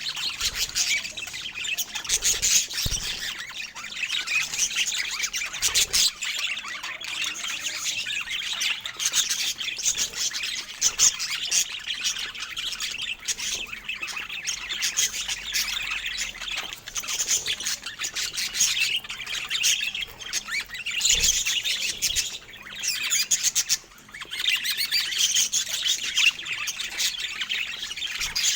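Budgerigars chattering and chirping continuously, with rapid warbles and squawks, and a brief lull about three-quarters of the way through.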